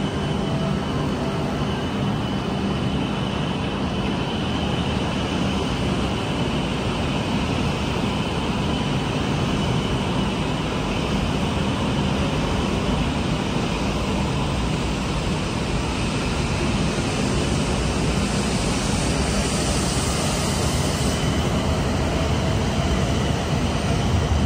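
E5 series Shinkansen pulling out of the station, its cars running past with a steady rush of wheel and running noise and a thin, high, steady tone over it. The sound swells slightly near the end as the train gathers speed.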